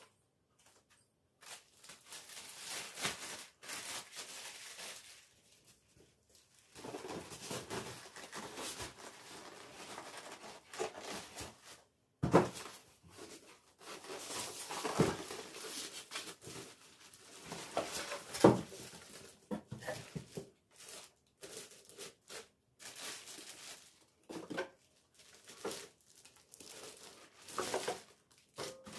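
Irregular rustling and crinkling of something being handled, as with paper or plastic, broken by a few sharp knocks.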